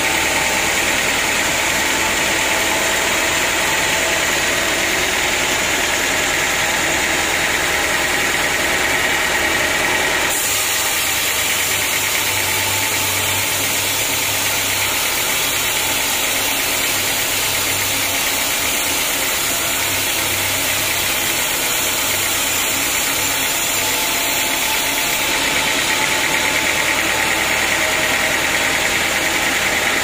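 Band sawmill running and sawing a teak log into slabs: a loud, steady machine noise of the blade cutting through the wood. Its tone changes abruptly about ten seconds in and again near the end.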